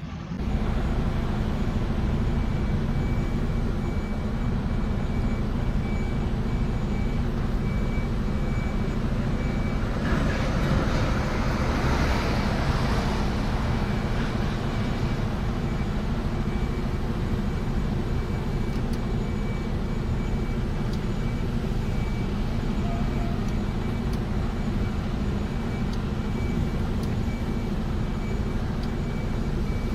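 Heavy truck engine and road noise while driving: a steady low rumble with a haze of tyre and wind noise, and a louder rush of higher noise swelling and fading about ten to fourteen seconds in.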